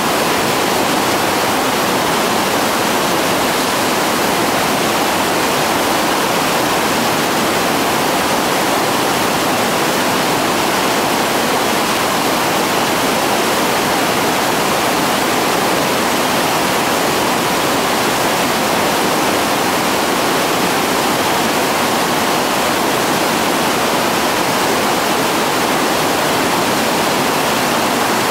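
Loud, steady rush of whitewater rapids, heavy water pouring over and between boulders, unchanging throughout.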